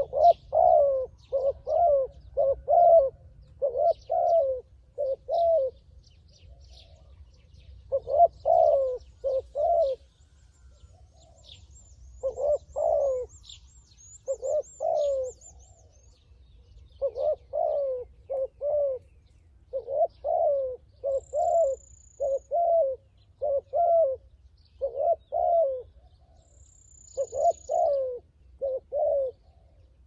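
Spotted dove cooing over and over in short phrases of two to four low coos with brief pauses between: a decoy dove calling to lure wild doves down to a trap. Faint small-bird chirps sound higher up, with two thin high whistles in the second half.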